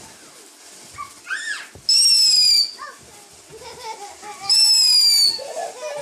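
Fountain firework spraying sparks with a faint hiss, and twice letting out a loud, high whistle lasting under a second that drops slightly in pitch.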